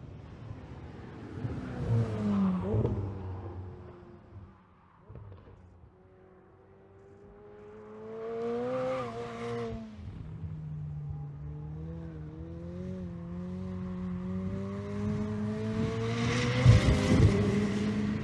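McLaren 765LT's twin-turbo V8 on a race track, its engine note rising and falling through several swells. The longest is a steady climb in pitch and volume to the loudest point near the end.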